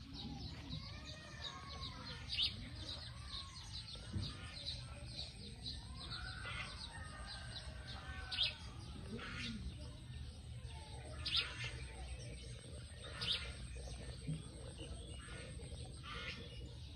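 Small birds chirping over and over, with four louder, sharper calls spread through, over a steady low outdoor background rumble.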